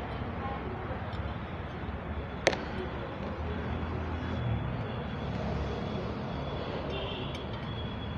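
Steady low background rumble with a faint high thin tone, and one sharp click about two and a half seconds in.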